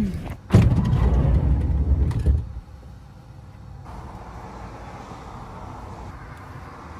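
Wind buffeting the microphone for about two seconds, then cutting off suddenly to a faint, steady outdoor background.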